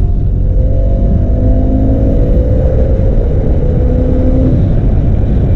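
Bajaj Dominar 400 motorcycle's single-cylinder engine pulling at road speed, its note rising slowly as it accelerates, under a loud, steady low rumble.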